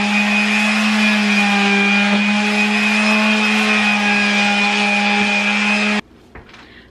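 Electric detail sander running steadily against a laminate countertop, a constant motor hum and high whine over gritty sanding hiss, stopping abruptly about six seconds in.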